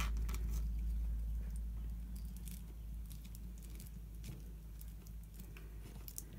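Small clicks and rustling of electrical wires being handled and a plastic twist-on wire connector being screwed onto them, with one sharp click as it begins. A steady low hum runs underneath.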